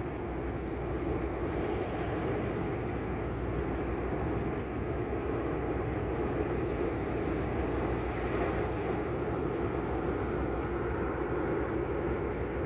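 Steady low machinery drone with no change in pitch or level, with a faint high chirp near the end.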